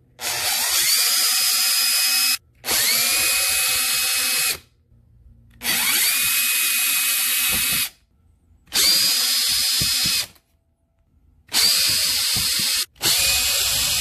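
Cordless drill/driver with an 8 mm hex nut-driver bit backing out the sheet-metal screws of an air handler's access panel. The motor whine rises quickly to speed, holds steady and cuts off abruptly, six times, one run per screw.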